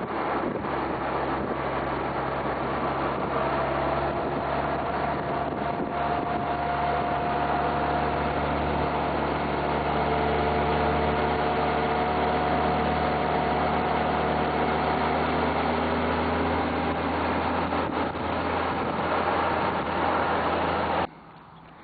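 Motorcycle engine running at a steady road speed under a constant rush of wind and road noise, heard from the rider's seat. It cuts off suddenly near the end.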